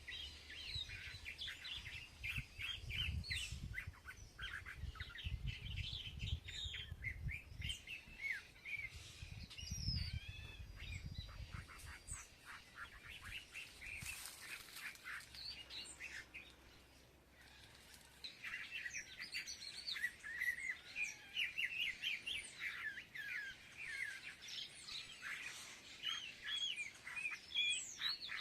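Several small birds chirping and twittering in quick, overlapping calls, typical of a flock feeding together, with a brief lull a little past the middle. A low rumble sits under the first part.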